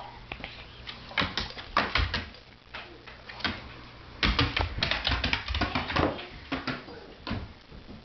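A dog's claws clicking and tapping irregularly on a hard floor, a string of quick light taps with a few louder ones.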